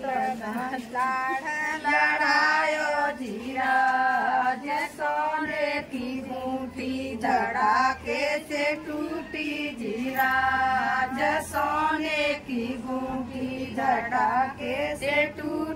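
A group of women singing a traditional folk song together, in short phrases with brief breaks, as sung at a kuan pujan (well-worship) ceremony after a son's birth.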